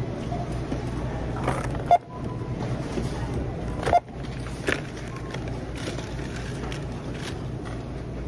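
Groceries being unloaded onto a store checkout counter: a few sharp knocks, about two and four seconds in, over a steady low hum.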